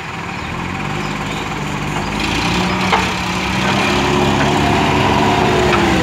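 JCB 3DX backhoe loader's diesel engine running steadily as the backhoe digs, getting louder about two seconds in as it works under load. A single clank about three seconds in, and a higher whine that falls in pitch near the end.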